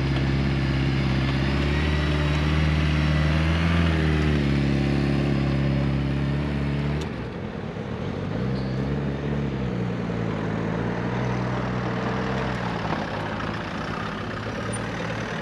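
Engines of slow-moving funeral vehicles (a motorcycle hearse with sidecar, a hearse car and a limousine) running as they pull away and drive past, a steady drone that rises a little in pitch. About seven seconds in, the sound changes abruptly to a lower, quieter engine drone that rises and falls in pitch.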